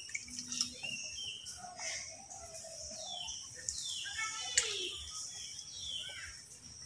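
Birds calling in short, falling chirps over a steady high-pitched hiss.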